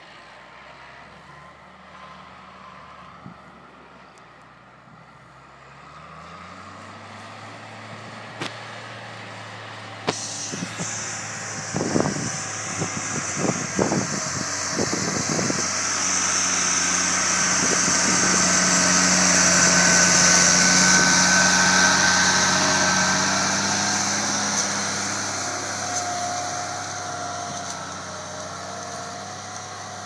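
Ford 8630 tractor's diesel engine working under load as it pulls a roll-over plough. Its pitch rises about six seconds in, and it grows louder as the tractor comes close and passes, then fades again. Several sharp knocks come between about ten and sixteen seconds in.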